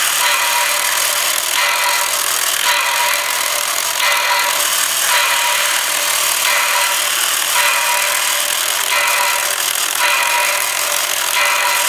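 Atlas model-railroad turntable's motor and gearing grinding steadily and loudly as it turns an HO locomotive, with a harsher rasp recurring about every second and a half.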